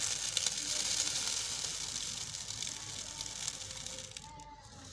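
Granulated sugar poured into a blender jar onto sliced peaches: a steady grainy hiss that tapers off and stops about four seconds in.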